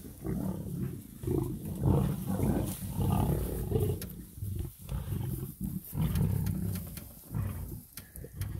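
Lions snarling and growling as they fight over a kill, in a run of rough, low bursts with short breaks between them.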